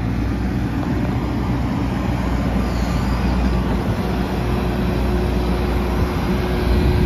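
Diesel engine of a Hitachi ZX130 LCN-5 long-reach tracked excavator running steadily, with a faint steady whine coming in about four seconds in.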